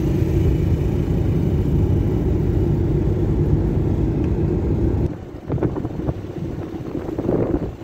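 Road vehicle running at speed: steady engine and road noise with a low drone. About five seconds in it cuts off abruptly and gives way to gusts of wind buffeting the microphone.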